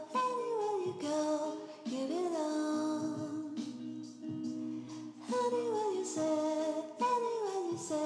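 Background music: a sung melody that glides downward in short phrases over sustained chords.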